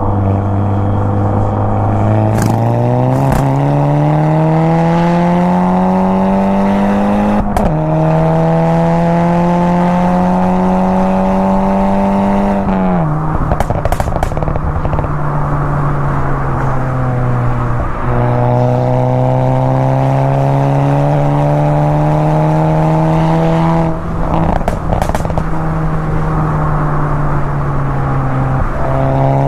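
Volkswagen Mk6 GTI's turbocharged 2.0-litre four-cylinder, stage 2 tuned and decatted, pulling up through the revs under acceleration. The pitch climbs steadily for several seconds with a brief break at a gear change, then drops sharply as the throttle is lifted about halfway through, and climbs again more gently after that. A few short, sharp cracks are scattered through.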